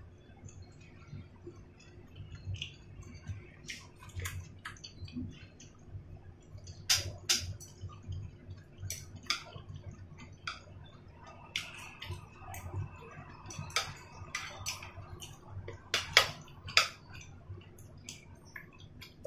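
Eating sounds: chewing and mouth smacks on boiled dumplings, with scattered clicks of wooden chopsticks against the plate and sauce bowl, over a low steady hum.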